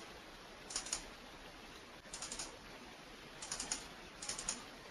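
Faint, quick clicking of a computer keyboard and mouse, in four short bursts of a few clicks each, about one a second.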